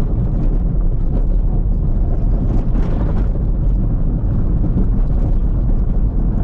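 Vehicle driving along a dirt road: a loud, steady low rumble of engine, tyres and road noise.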